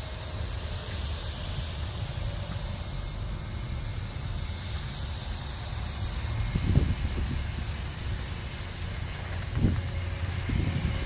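Paint spray gun hissing as it lays paint on a car bumper, the hiss swelling and easing with the passes, over a low rumble, with two brief thumps about two-thirds of the way in and near the end.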